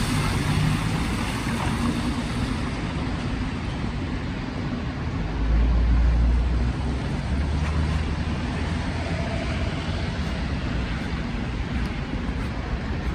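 City street traffic noise: a steady wash of passing vehicles, with a louder low engine rumble as a vehicle goes by about halfway through.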